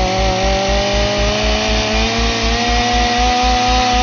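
Chainsaw sound effect revving up sharply at the start, then running at a high, steady pitch that creeps slightly higher. A low pulsing thump repeats a few times a second underneath.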